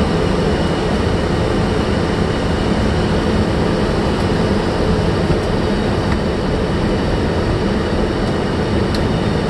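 Steady rushing noise on a Boeing 757-300's flight deck during short final approach: airflow and engine sound at an even level, with no change.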